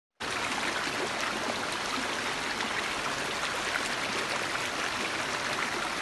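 Shallow rocky stream flowing over boulders and small cascades: a steady hiss of running water.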